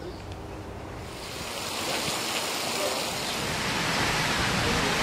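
Water spilling over a wide stepped cascade into a basin: a steady rush of water that sets in about a second in and grows louder.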